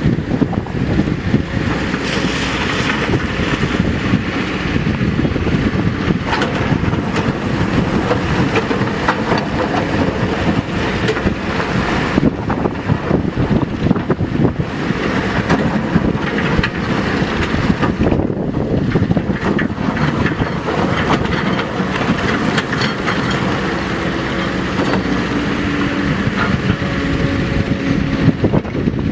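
Kobelco SK200 hydraulic excavator's diesel engine running steadily under load as the machine digs wet sand and gravel from a riverbed.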